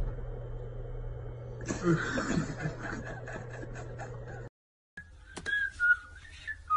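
People snickering and chuckling over a steady low hum. After a brief cut to silence come a few clicks and short, gliding whistled notes.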